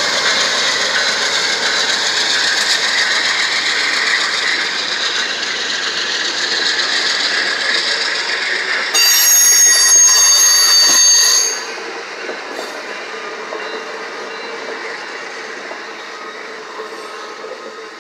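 Amtrak passenger train passing close by, wheels rolling and squealing on the rails. About halfway through, a shrill high squeal sounds loudly for a couple of seconds and stops suddenly. After that the rolling fades as the train moves away.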